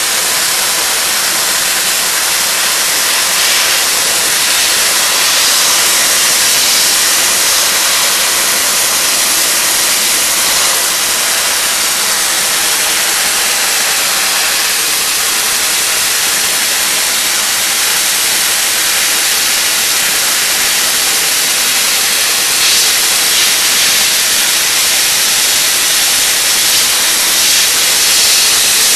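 Cold Jet dry ice blaster nozzle running, a loud, steady hiss of compressed air and dry ice pellets blasting chewing gum off a subway car's metal door threshold.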